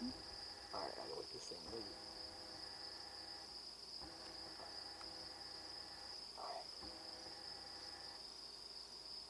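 A steady, thin, high-pitched insect drone, like crickets, over a quiet field, with a few faint soft sounds.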